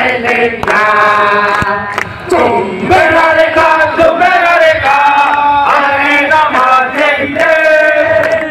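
A large crowd of men chanting and singing together in unison, in drawn-out phrases.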